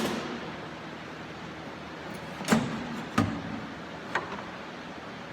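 Four separate knocks and clunks of parts being handled during work on a truck's front end. There is one at the start, two close together past the middle, and a lighter one about four seconds in.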